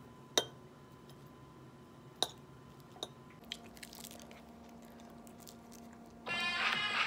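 A metal utensil clinking twice against a cut-glass plate as kimbap slices are set down, followed by a few softer taps and some light rustling. Music starts near the end.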